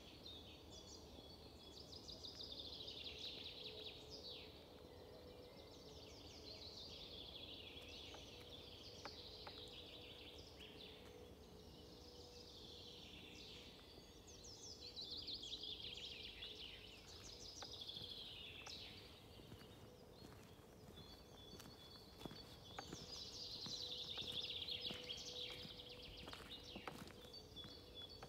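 A songbird singing, repeating a quick descending trilled phrase every few seconds. The song is faint, over a steady low hum and a soft background rumble.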